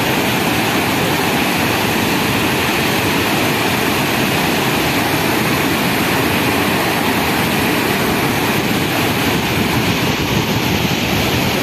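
Kaveri river's Hogenakkal Falls pouring over wide rock ledges in heavy, muddy flow: a loud, steady rush of falling water.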